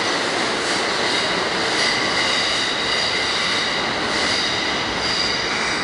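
R-32 subway train pulling away through the tunnel: a steady run of wheel-on-rail noise with a high, several-toned squeal of the wheels on the rails held throughout.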